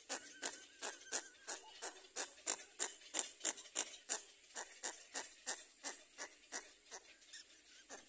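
Little egret chicks giving harsh, rapid begging calls, a steady run of short rasping notes about three a second, while grabbing at the parent's bill to be fed.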